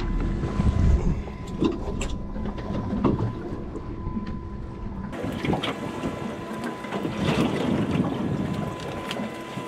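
Fishing boat's engine idling steadily, with wind and water noise on the microphone and a few small knocks from handling.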